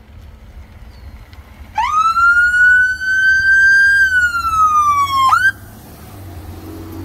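Police vehicle's electronic siren giving one short wail. About two seconds in it sweeps quickly up, holds and slowly climbs, then slides down, gives a brief upward chirp and cuts off suddenly.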